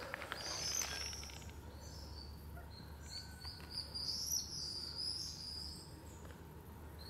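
Small birds chirping and twittering in high, quick, wavering notes for most of the clip, over a faint steady low hum.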